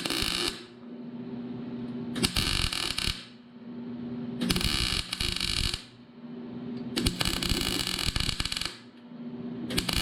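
Electric welding arc crackling in short bursts of one to two seconds, about every two and a half seconds, as beads are laid around cracked bolt holes in a steel riding-mower deck. A steady low hum continues between the bursts.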